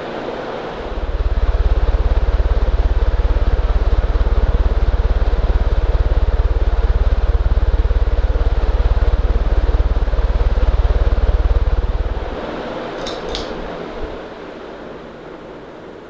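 Edison Model 224528 stamped-motor ceiling fan running, with a steady rush of air from the blades and a steady hum. From about a second in, the fan's downdraft buffets the microphone with a loud low rumble that stops about twelve seconds in. Two light clicks and a small knock follow near the end.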